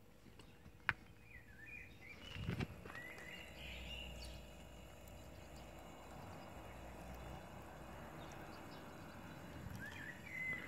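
Birds chirping briefly over a faint steady hiss and low hum, with a sharp click about a second in and a knock a moment later.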